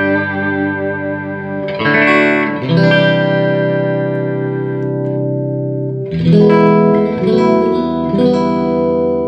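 Electric guitar (K-Line Springfield with Rocket Fire pickups) playing chords through a hand-wired Longbeard Tritone 6V6 tube combo amp at moderate-to-loud volume, with the Soul switch on its tight, blackface-style setting. Several chords are struck and left to ring, one held for about three seconds in the middle.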